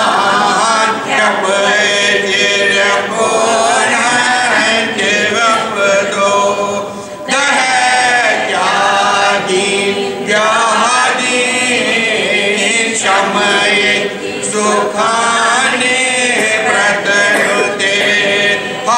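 A mixed group of men and women chanting a devotional hymn together in unison, in phrases with short breaths between them.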